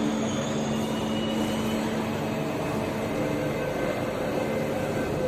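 Metro train running: a steady noise with a low, steady hum.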